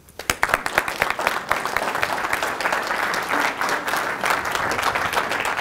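Audience applauding: many people clapping, starting a moment in and keeping up steadily.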